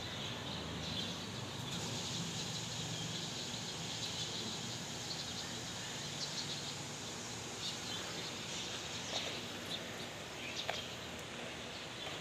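Dusk outdoor ambience: insects and birds chirping over a steady hiss, with a faint low hum underneath.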